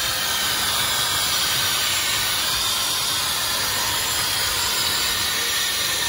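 Dyson hair dryer running steadily, an even rushing hiss of blown air aimed at a dog's coat.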